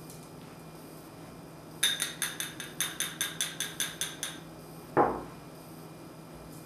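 A small glass bowl clinks against a metal mesh strainer about a dozen times in quick succession while Oreo cookie crumbs are tipped and shaken into the strainer. About a second later comes one louder knock with a short ring, as the glass bowl is set down on the table.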